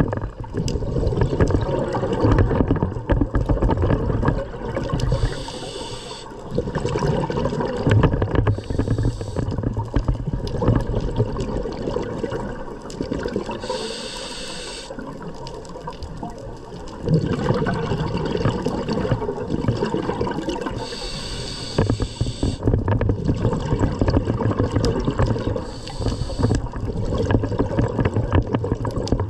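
Scuba diver's regulator breathing underwater: a short hiss on each inhale and rumbling, gurgling exhaust bubbles on each exhale, repeating every few seconds.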